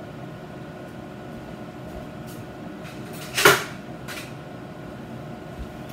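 A kitchen cupboard door knocks shut once, sharply, about three and a half seconds in, with a fainter knock just after, as a plate is fetched. A steady low hum sits underneath.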